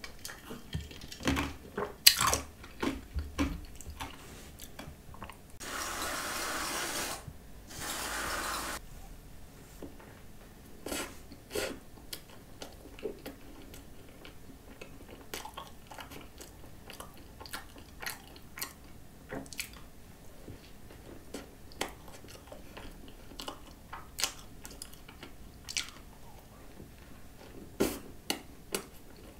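Close-miked eating: crisp bites and chewing of a whipped-cream-topped croissant, with scattered crunchy clicks. Near the start come a few sharp knocks, and about six seconds in a steady hiss comes in two spurts lasting about three seconds, as from a can of whipped cream spraying.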